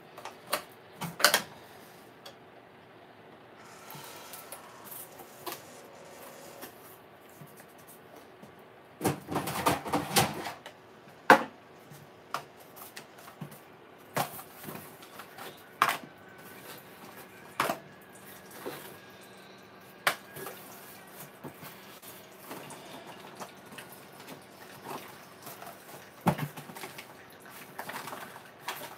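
Scattered clicks, knocks and clatter of hard items being handled on a kitchen countertop, with a burst of rattling about nine seconds in and single sharp clicks spread through the rest.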